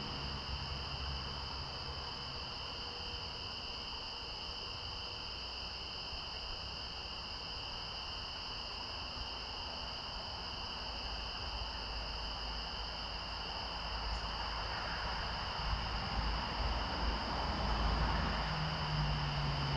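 Insects trilling steadily as a chorus, two unbroken high tones held throughout. Under them is a low rumble that grows louder in the last few seconds.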